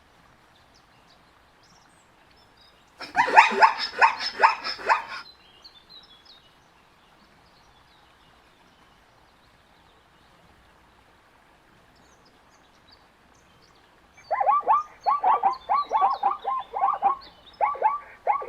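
Zebra barking bray: a rapid series of short honking pulses. One bout comes about three seconds in and lasts about two seconds. After several quiet seconds, a second longer bout starts near the end.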